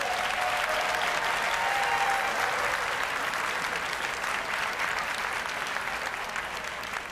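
Arena audience applauding as a dog is gaited around the ring, loudest about two seconds in and then slowly dying down.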